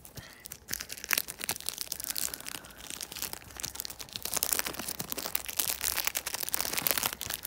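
Plastic shrink wrap on a DVD case crinkling and crackling as it is peeled and torn off by hand, in a dense run of small crackles that gets louder about halfway through.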